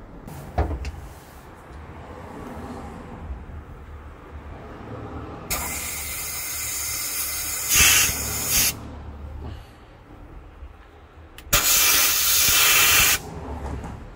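Handheld air-powered spot sandblaster firing in two hissing bursts, one of about three seconds starting about five seconds in and a shorter one near the end, as it blasts rust off the van's steel cargo floor.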